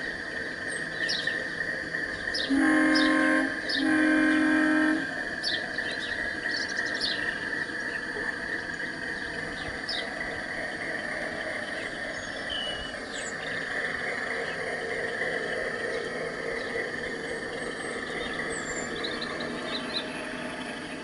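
Sound system of a G scale model ALCO diesel locomotive sounding its horn in two blasts of about a second each, a few seconds in. A steady diesel-engine hum and running noise from the models carries on throughout.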